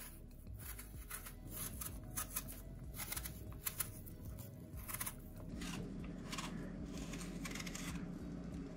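Paring knife peeling the skin off an apple: a run of short, crisp slicing scrapes as the blade cuts through the peel, turning into a denser, steadier rasping about halfway through.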